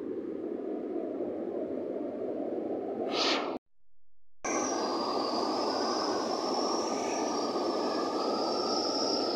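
Rushing white water tumbling over rocks and small falls in a stream, a steady noise. The sound briefly swells, then drops out for about a second a little before halfway through. It resumes with the same rushing plus a steady higher hiss.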